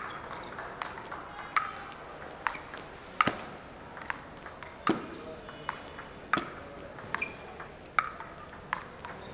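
Table tennis rally: a celluloid/plastic ball clicking off sandpaper-faced paddles and bouncing on the table, a sharp click about every three-quarters of a second, with harder hits about three and five seconds in.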